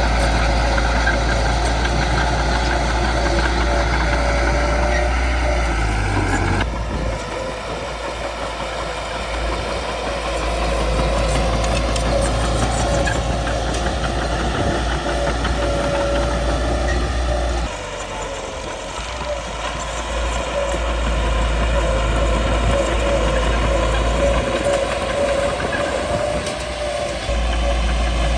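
Caterpillar D3C bulldozer's diesel engine running steadily under work, with a constant low drone and a steady tone on top. The sound drops abruptly about 7 seconds in and again about 18 seconds in, then comes back up.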